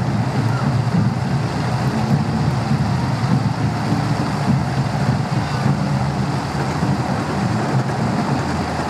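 Steady rumble of a small children's caterpillar-train roller coaster running around its steel track.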